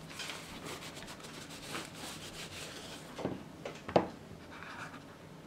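Cloth rubbing and scrubbing over an airsoft MP9, with small scratches and ticks. Two knocks come about three and four seconds in as the gun is handled against the table; the second is sharp and is the loudest sound.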